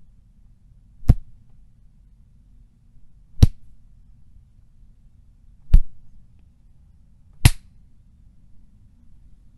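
Four punch sound effects: sharp smacking hits spaced about two seconds apart, over a faint low hum.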